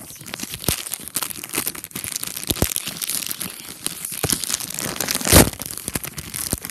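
A plastic toy packet being crinkled and torn open by hand close to the microphone, a dense crackling and rustling that goes on throughout, with one louder rip about five seconds in.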